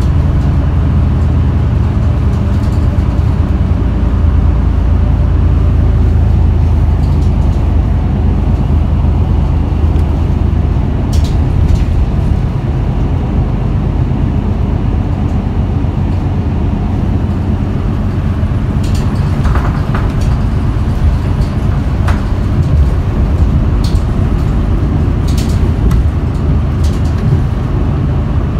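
Isuzu Erga city bus engine running, heard from inside the bus: a steady low drone, with a few short clicks and rattles in the second half.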